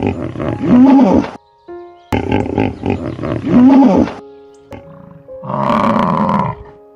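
Buffalo bellowing: a deep, grunting roar played twice in identical form, then another call near the end, over light background music.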